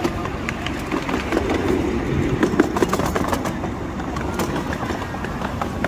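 A 7¼-inch-gauge ride-on miniature railway train rolling along, heard from a passenger car: steady rumble with many quick clicks and clatters of the wheels over rail joints and points.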